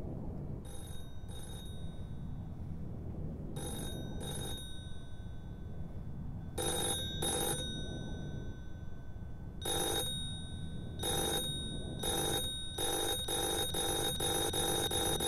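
Push-button desk telephone ringing electronically in double rings about every three seconds, growing louder. Later the rings come faster and closer together. A steady low rumble runs underneath.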